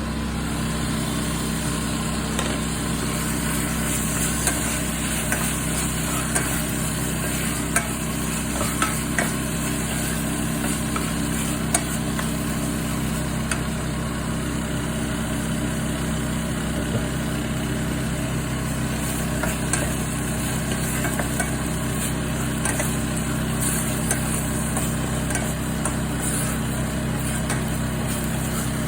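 Minced beef sizzling in a frying pan while it is stirred, with scattered short clicks of the utensil against the pan, over a steady low hum.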